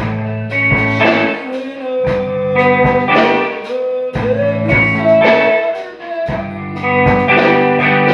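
Improvised blues-style jam: guitar over a drum kit beat, with one note sliding up in pitch and held about halfway through.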